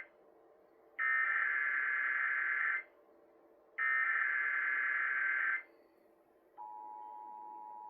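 Emergency Alert System SAME header: two bursts of screechy digital data tones, each nearly two seconds long with a second's gap between them. About a second after the second burst, the steady two-tone EAS attention signal starts, quieter than the bursts, announcing a severe thunderstorm warning.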